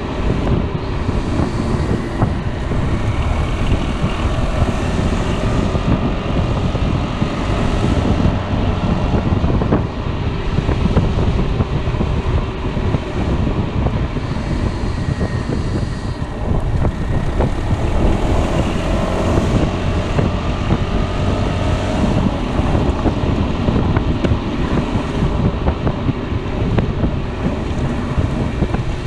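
Wind buffeting the microphone on a Piaggio Beverly 300 scooter under way, with the engine and road noise running steadily underneath. Faint tones slide up and down in pitch now and then.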